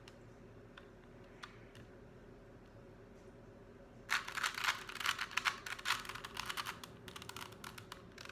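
Plastic 3x3 Rubik's Cube being turned by hand, its layers clicking: a few scattered clicks, then a quick run of turns lasting about three seconds from about halfway through.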